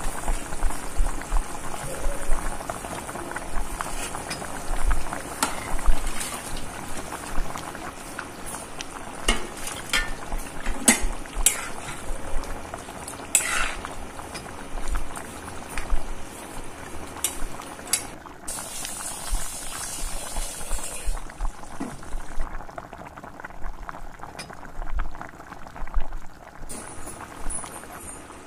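Masala fish curry bubbling and sizzling in a steel pan, with a spoon stirring it and clicking and scraping against the pan now and then.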